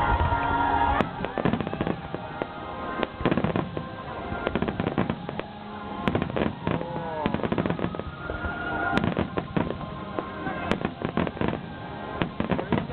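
Aerial fireworks display: repeated shell bursts and dense crackling, with music playing underneath.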